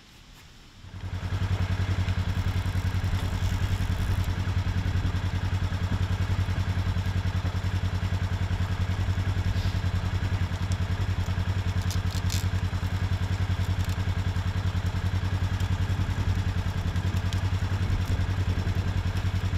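A motor vehicle's engine running steadily with a fast, even throb. It comes in about a second in and holds at the same pitch throughout.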